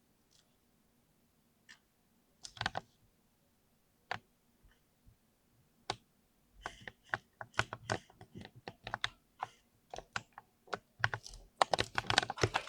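Typing on a Ducky mechanical keyboard with Cherry MX Speed switches, the keys clacking as they bottom out. A few scattered keystrokes come first, then about halfway through it turns into fast, continuous typing that is densest near the end.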